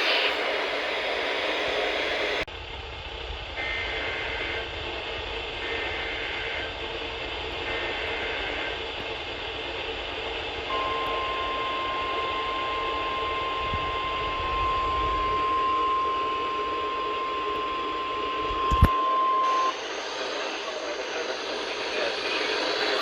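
NOAA Weather Radio alert coming through receiver static: a few short warbling SAME data bursts of the alert header, then the steady 1050 Hz warning alarm tone held for about nine seconds, which signals that a new warning is being broadcast. A sharp click comes just before the tone ends.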